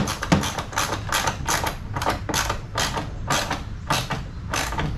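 Ratcheting socket wrench tightening a nylon lock nut onto a bolt: a steady run of clicking strokes, about three or four a second.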